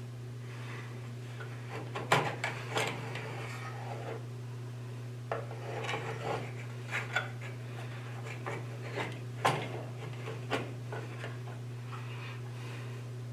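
Scattered knocks, clicks and rubbing of small hard objects being handled, over a steady low hum. The loudest knocks come about two seconds in and again near nine and a half seconds.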